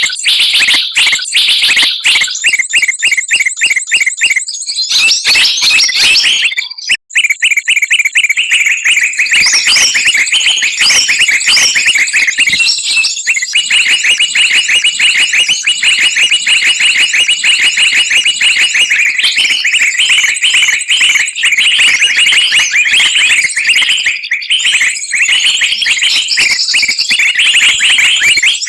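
Bird-lure recording of many small songbirds chattering and chirping together, used to call wild birds down to a trap. The shrill, rapid notes run densely and loudly, with a short break about seven seconds in.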